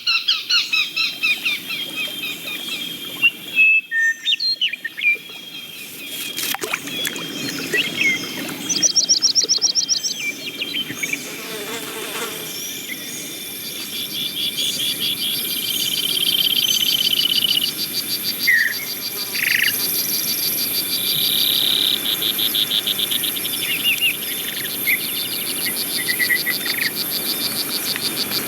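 Film sound-effects ambience of insects and birds: overlapping insect trills in fast even pulses, cricket-like chirping and short bird chirps over a steady hiss, with a sharp click about six seconds in.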